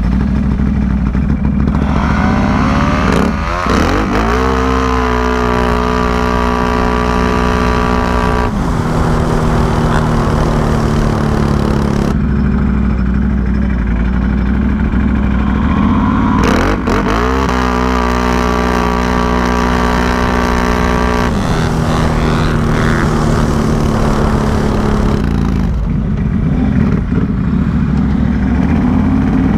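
Can-Am Renegade 1000 XMR's V-twin engine launching down a dirt drag strip at full throttle twice: the engine note climbs quickly, then holds a steady high pitch for about five seconds as the CVT clutch keeps the revs up, before backing off to idle. Near the end it revs up again.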